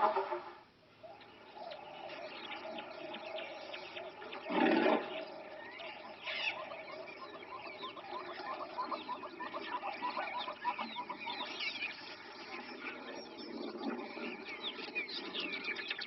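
Many birds chirping in quick, short calls, with one short, louder sound about four and a half seconds in.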